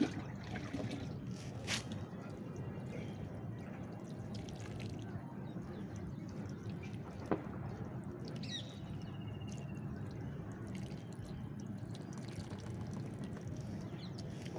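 Water poured from a plastic mug onto the soil of a potted jade plant bonsai, trickling and dripping steadily, with a couple of sharp clicks.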